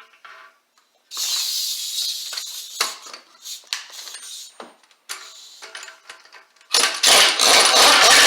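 Metal tools and parts of a wheel bearing press kit clinking and scraping in handling: a hissy scrape about a second in, scattered sharp knocks, then a loud rough grinding noise near the end.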